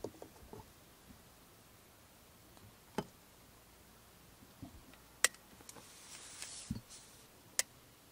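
Quiet handling clicks and knocks: a glass lid set onto a small metal pot on a mini electric cooker, then a single sharp click near the end as the cooker's switch is pressed.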